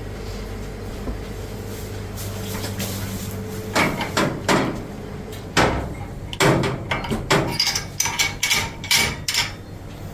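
A steady machine hum, then from about four seconds in a run of knocks and clatters, as of equipment being handled.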